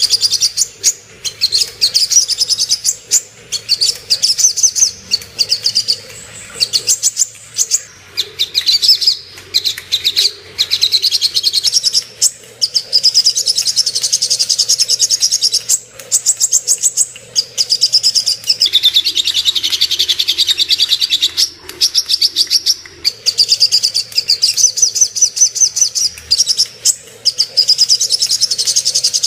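Little spiderhunter (sogok ontong) singing a long, rapid, high-pitched chattering song in runs of fast notes with short pauses, dropping to a lower-pitched phrase about two-thirds of the way through. A recorded song of the kind used as a lure to set caged males singing.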